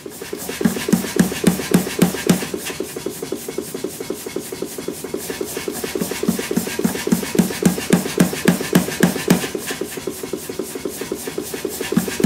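Rapid, evenly spaced hammer blows on a red-hot EN9 steel hammer head held in tongs on the anvil, about three to four strikes a second, some heavier and some lighter.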